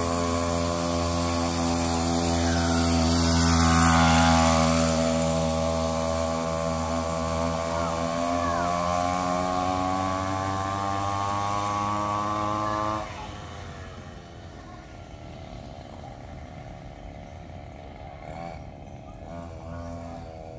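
Small petrol engine of a homemade wooden-frame motorcycle running under way, loudest about four seconds in, its pitch creeping up slightly, then dropping abruptly to a much quieter running about two-thirds through.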